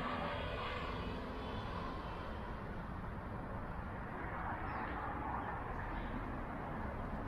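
Engine noise of a passing road vehicle over a low, steady wind rumble, swelling a little about a second in and again about four to five seconds in.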